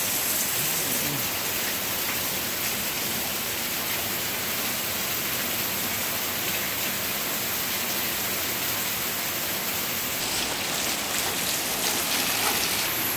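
Heavy rain pouring down, a dense, steady hiss.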